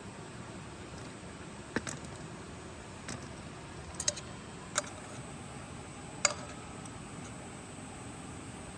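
A few light clinks and taps of cooking utensils against cookware, scattered over several seconds; the last one rings briefly like metal. Underneath is a steady hiss.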